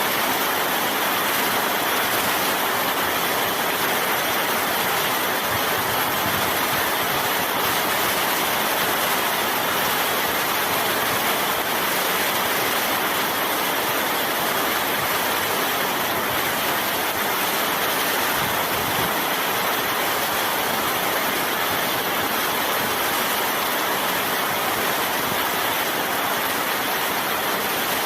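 Steady rain falling: an even, unbroken hiss of raindrops.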